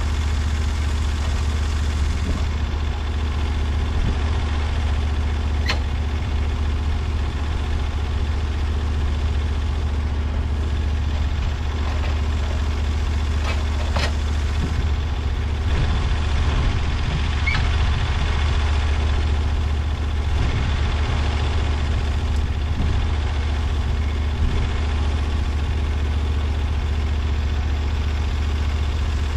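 Portable sawmill's engine idling steadily with a low hum, with a few sharp clicks or knocks scattered through it.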